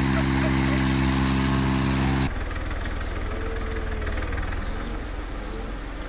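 Diesel tractor engine running at a steady speed. A little over two seconds in, the sound changes abruptly to a quieter, rougher low rumble with a fast pulsing beat.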